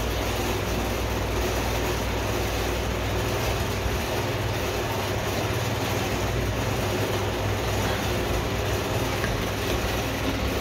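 A steady low machine hum under an even hiss, unchanging throughout, with no distinct tool strikes.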